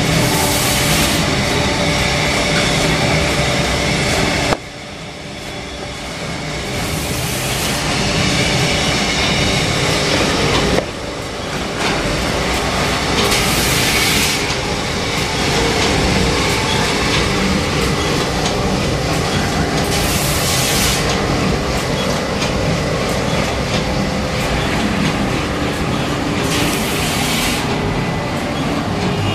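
Toilet-paper roll production machinery running steadily with a humming drone, and a high hissing burst of about a second roughly every six to seven seconds. The level drops abruptly twice.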